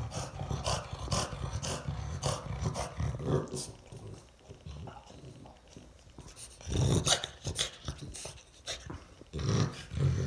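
French bulldog making low, throaty grunts in irregular bouts while its neck and chin are scratched, a pleased dog's sounds; the loudest bout comes about seven seconds in.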